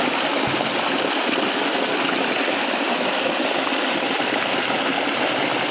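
Pumped-out pond water gushing steadily across paving and pouring into a drain, a continuous rush.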